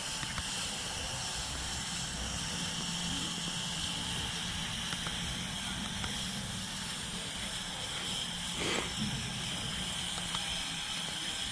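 Lego RC crawler's small electric motors running steadily as it drives over grass, with one brief knock partway through.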